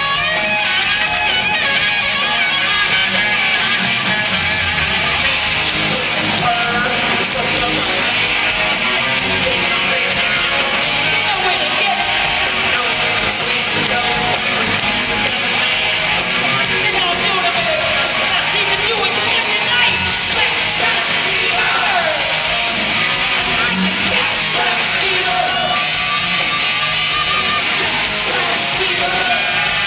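Live hard rock band playing at full volume: distorted electric guitars, bass guitar and drums, recorded from among the audience in a concert hall.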